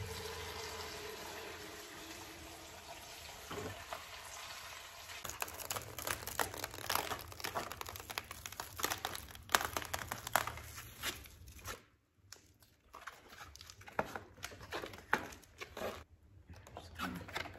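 Thin clear plastic mesh sheets for a moss pole crinkling and crackling as they are handled and unrolled, in irregular clusters with a short pause partway through.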